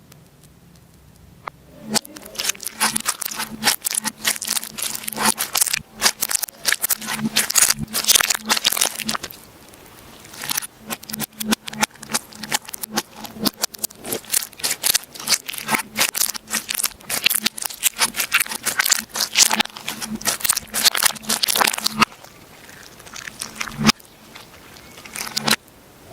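Slime being squeezed and pressed by hand, giving dense crackling and popping clicks. It starts about two seconds in and eases off near the end.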